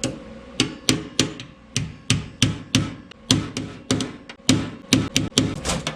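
A hammer striking steel sheet metal in a quick, irregular series of about three blows a second, each with a short metallic ring, tapping a new frame reinforcement panel flat against the panel behind it.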